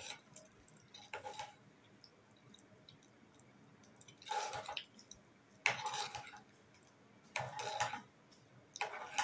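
A spoon stirring chopped boiled eggs into thick curry masala in a metal pot: about five separate wet, squelching strokes, each with a scrape against the pot.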